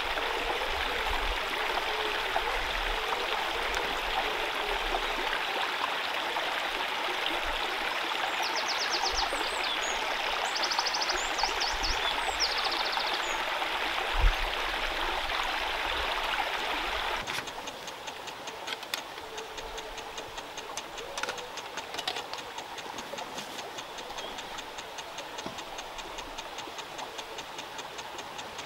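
Shallow woodland stream rushing steadily, with a few short high trills about 8 to 13 seconds in and a single low thump near 14 seconds. Around 17 seconds in the rush drops away abruptly to a quieter background with a fast, even ticking.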